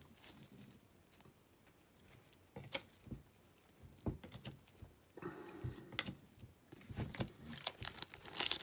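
Chrome trading cards handled and flipped one by one, giving scattered soft clicks and slides of card on card. Near the end a pack wrapper crinkles loudly as the next pack is picked up.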